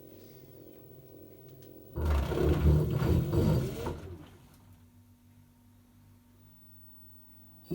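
LG washing machine running with a steady low hum, then a loud rough noise starting suddenly about two seconds in and fading out over about two seconds: the unexplained noise the machine makes.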